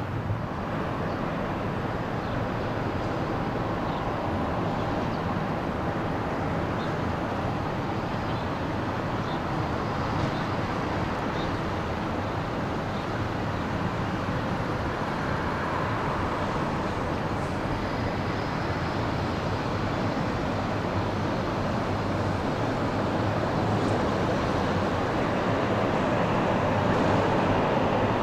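Jet engines of a taxiing airliner at low power: a steady noise that grows slightly louder near the end.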